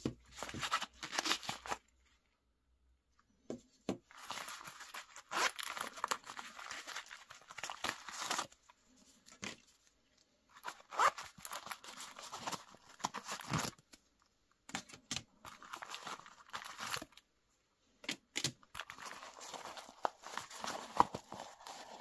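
Stiff laminated X-Pac VX21 fabric of a zip pouch rustling and crinkling in the hands in uneven bursts as small tools are pushed into its slots, with a few sharp clicks. There are short pauses between the bursts.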